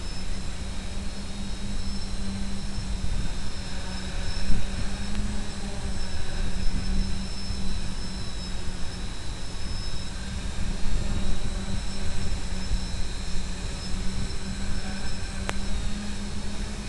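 Electric motors and propellers of a multirotor running steadily in a low hover: a constant hum with thin high whines over a low rumble. One sharp click comes near the end.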